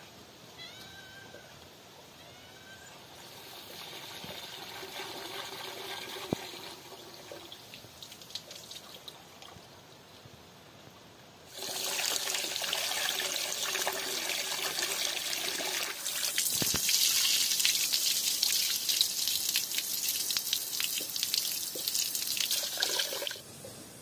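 A cat meows briefly at the start. Then water from an outdoor tap runs into a metal bowl as rice is washed in it by hand, a steady splashing rush that comes on suddenly about halfway through and cuts off near the end.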